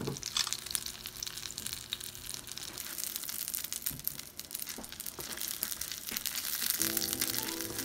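Egg-battered oysters frying in oil in a pan, a steady crackling sizzle full of small pops. Background music comes in near the end.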